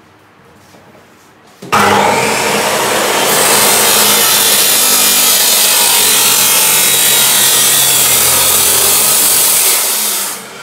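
Dekton DK355 2800 W abrasive chop saw with a 355 mm cut-off wheel, switched on about two seconds in and grinding through a clamped steel box-section tube with a loud, harsh hiss. The sound holds steady through the cut and falls away near the end as the motor is released.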